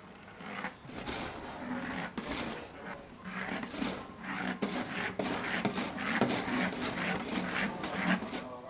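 Food-preparation work: rapid, irregular scraping, rubbing and light knocks on a wooden surface, over a steady low hum.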